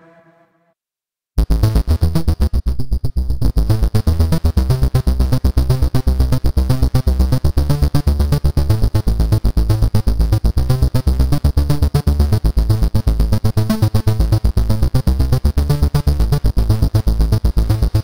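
ReFX Nexus 4 software synthesizer playing its 'Bitchop' trance-gate preset: a held note chopped into fast, even rhythmic pulses over heavy bass. It starts about a second and a half in, after a short silence.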